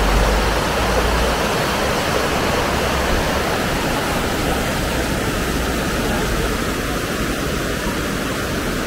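Shallow rocky stream rushing and splashing over boulders and small rapids, a steady flow of water noise.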